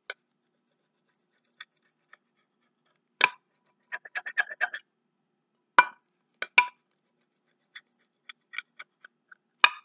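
A knife cutting baked oat-and-raspberry bars in a glass baking dish: a few sharp clicks of the blade against the glass, a second or more apart, with runs of faint ticks in between.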